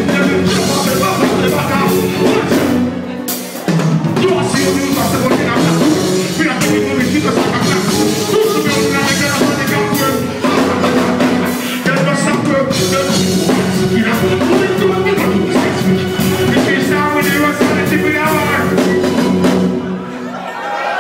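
Live reggae band playing, with a drum kit beat and singing over it; the music thins out near the end.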